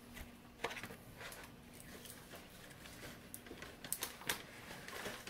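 Kitchen knife cutting through rolled cookie dough and knocking on a stone countertop: faint, scattered clicks and light scrapes, the sharpest a little under four seconds in.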